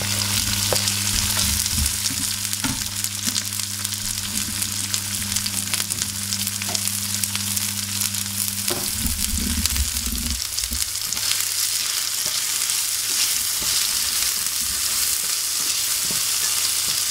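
Sliced onion, garlic and tofu sizzling in hot oil in a frying pan, with small scrapes and clicks as they are stirred. A steady low hum runs underneath and stops about ten seconds in.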